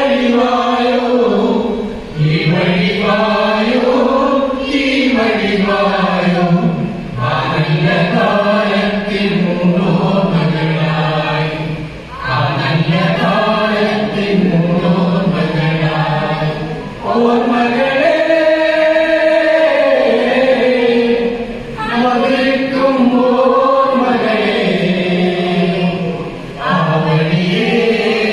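Voices singing a slow melody in long, arching phrases of about five seconds each, with short breaks for breath between them.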